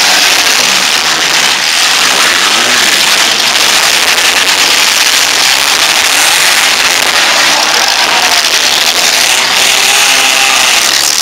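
Engines of several four-cylinder compact demolition derby cars running and revving together, a loud, steady din with pitches rising and falling.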